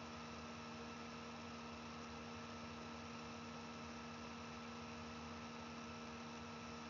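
Steady electrical hum over a faint hiss, unchanging throughout: background noise of the recording setup.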